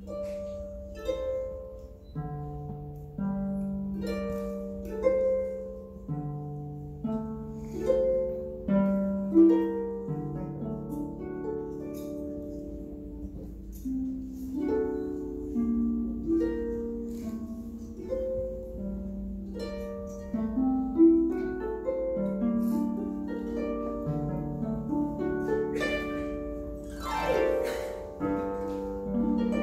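Solo harp: plucked notes that ring on, with a low bass line under a higher melody. Near the end there is a quick upward glissando across the strings.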